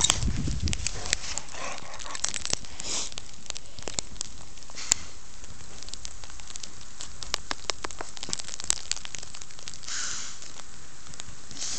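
Crackling, crunching deep snow as a bulldog wades and pushes its nose through it, scattered sharp clicks throughout, with a few short breathy snorts.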